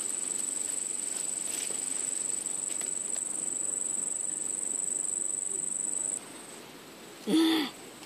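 Insects keep up a steady, high-pitched trill that cuts off suddenly about six seconds in. Near the end comes one short, loud voice-like call.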